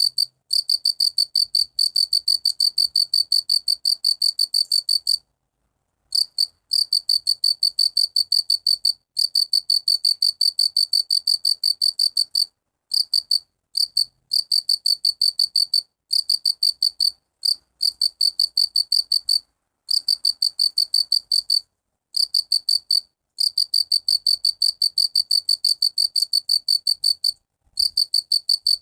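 Cricket chirping: a fast, even string of high-pitched pulses, in runs of several seconds broken by short pauses.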